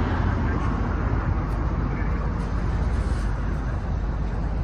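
Steady low rumble of road and engine noise inside the cabin of a 15-seat passenger van on the move.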